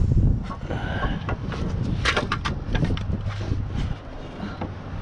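Irregular clinks and knocks of metal parts and hand tools being handled during the turbo install, over a low rumble.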